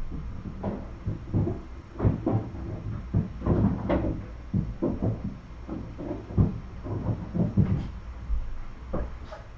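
A run of irregular soft thumps and knocks with some rustling, a dozen or more over several seconds.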